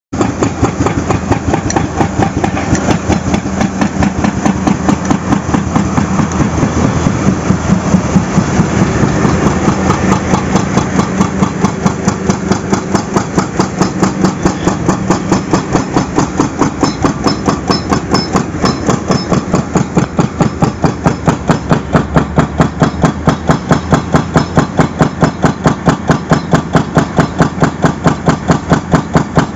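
Heavy construction machinery running with a fast, even pounding of several knocks a second, which grows sharper and more regular from about twenty seconds in.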